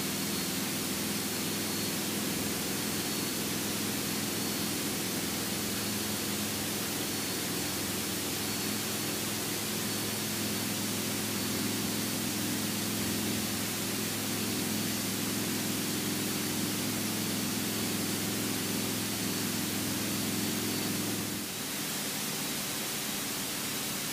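Cessna 172 single-engine piston propeller plane at full power in the climb after takeoff, a steady engine drone under heavy hiss, heard inside the cockpit. About 21 seconds in the engine note shifts and gets slightly quieter.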